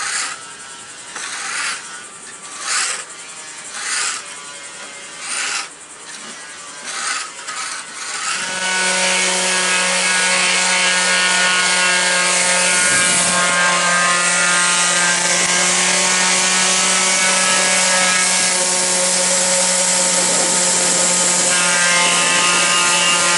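A putty knife scraping barnacles off a painted fibreglass boat hull in about six strokes, roughly one a second. About eight seconds in, a Black+Decker random orbital sander starts and runs steadily with a humming whine, sanding the old bottom paint to a rough surface for new paint.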